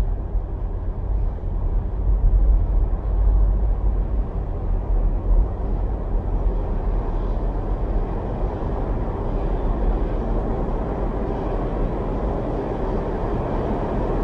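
Tornado wind rushing steadily: a deep, even rumbling noise with no distinct tones or rhythm.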